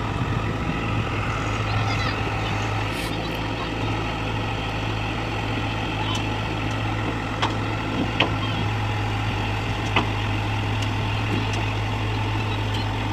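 Heavy diesel machinery engine running steadily, an even low drone, with a few short sharp clicks in the second half.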